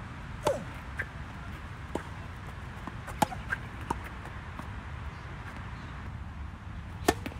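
Tennis ball being struck by racquets and bouncing on the court during a doubles rally: a string of sharp, short pops at irregular intervals, the loudest about three seconds in and again near the end.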